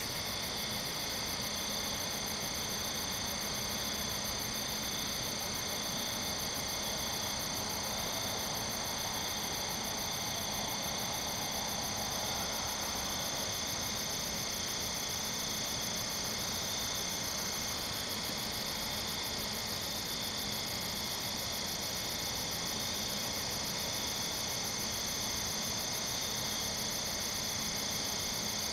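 Night chorus of singing insects, crickets and katydids among them. It is a steady, unbroken layer of high trills at several pitches, with the highest one pulsing rapidly and evenly.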